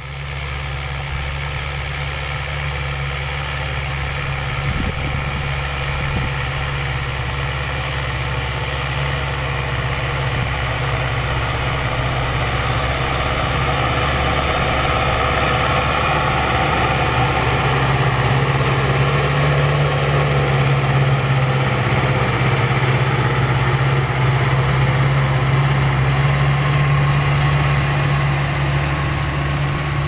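Massey Ferguson 4299 tractor's diesel engine running steadily under load while pulling a 56-disc offset harrow through the soil. It gets louder as the tractor comes closer over the first half, then holds steady.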